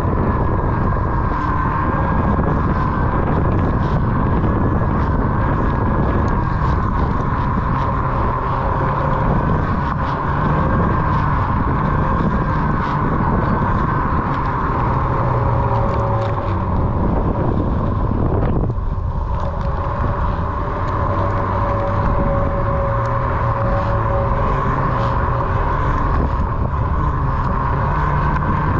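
Onewheel XR electric board's hub motor whining as it rides along, its pitch wavering slightly with speed. Over it is a steady rumble of wind on the microphone.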